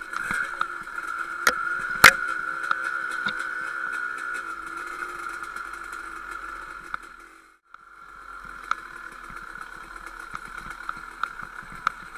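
Two-stroke KTM 250 dirt bike engine running at low, steady revs, with frequent clicks and knocks as the bike rides over the rocky trail and one sharp knock about two seconds in. The sound cuts out for a moment a little past halfway.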